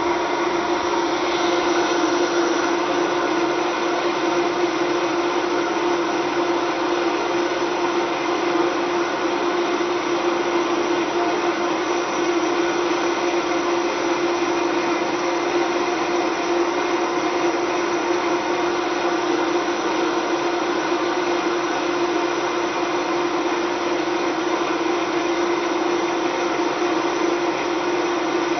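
Vitamix blender running steadily, a constant motor whine over a hiss, with no change in speed. It is heating its contents by the friction of the blades until they turn warm.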